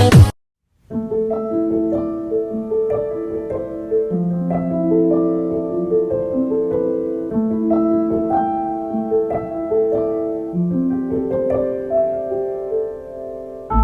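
Background music: a gentle solo piano piece, single held notes in a slow melody over a soft accompaniment, starting just after a louder electronic beat cuts off in the first half second.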